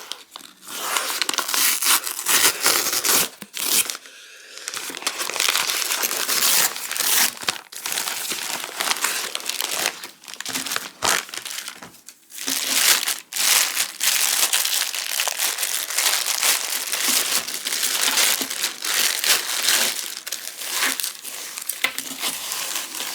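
Packaging being handled and unwrapped, with continuous crinkling and many short sharp crackles.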